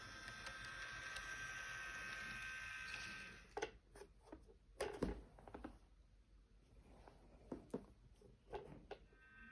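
A faint steady whine with several fixed pitches stops about three seconds in, followed by scattered light clicks and taps, typical of a small plastic N scale freight car and its packaging being handled.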